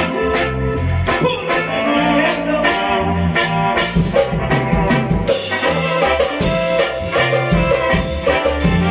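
Instrumental band music with no singing: a drum kit keeps a steady beat under a bass line and brass.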